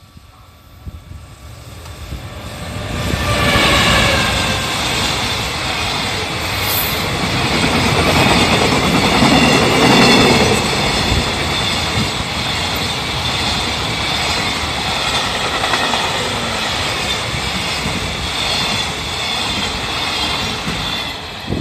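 Freight train hauled by an EF210 electric locomotive passing at speed, its wagons' wheels clattering and rumbling over the rails. The sound builds up from about two seconds in, then stays loud and steady as the train goes by.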